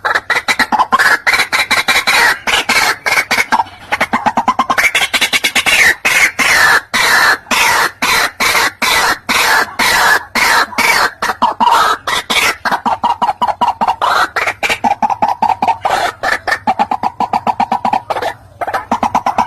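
White-breasted waterhen calling: a long, loud run of rapidly repeated harsh notes, several a second, with a short break near the end.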